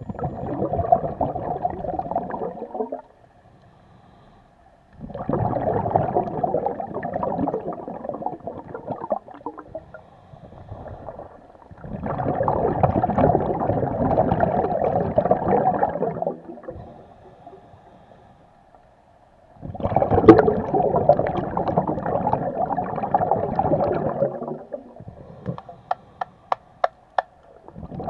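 Scuba diver breathing through a regulator underwater: four long bursts of gurgling exhaled bubbles, each a few seconds long, with short quieter pauses for the in-breaths. A quick run of sharp clicks comes near the end.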